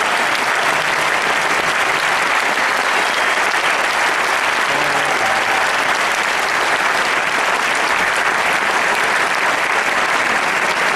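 Audience applauding steadily at the end of a sung performance.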